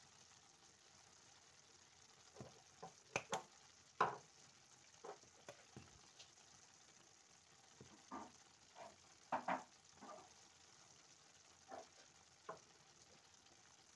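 About a dozen short, irregular clicks and taps from spice containers being shaken over a pot as dried herbs and a ground spice are sprinkled in, loudest a few seconds in and again past the middle. Under them runs a faint steady hiss from the simmering stew.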